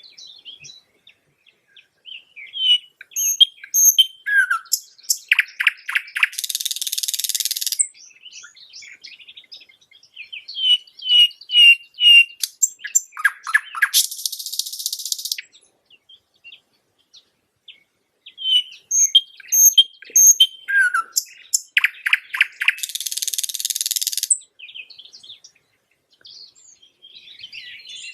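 A nightingale singing in phrases a few seconds long, separated by short pauses. Each phrase mixes clear repeated whistled notes with harsh buzzing stretches. Three full phrases are heard, and a fourth begins near the end.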